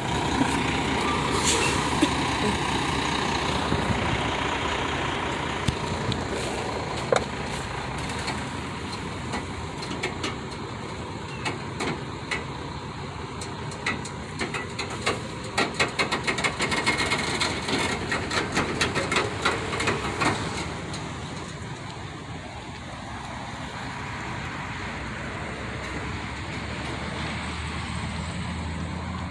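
Heavy diesel semi truck running as it hauls a lowboy trailer loaded with a tracked excavator away down the street. From about ten to twenty seconds in there is a run of rapid clicking and rattling, after which the sound settles lower and steadier.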